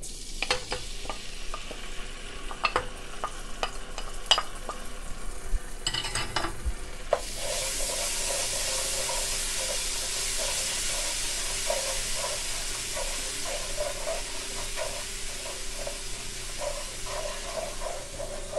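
Ginger-garlic paste frying in hot oil in a non-stick wok, stirred with a wooden spoon: a few spoon clicks and taps at first, then about seven seconds in the sizzle turns loud and steady, with stirring strokes about twice a second. This is the masala being fried (bhuna) in oil.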